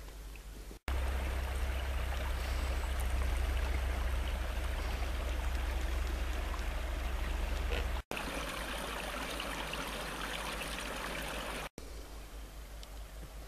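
A small forest stream running: a steady rush of flowing water, with a low rumble under it for the first several seconds. The sound breaks off briefly three times, about a second in, after about eight seconds and near the end, changing a little at each break.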